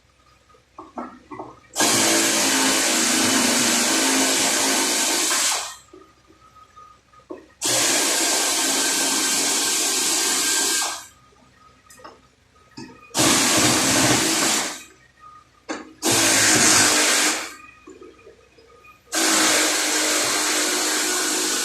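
A workshop tool running in five bursts of one to four seconds, each a loud rushing hiss that starts and stops abruptly.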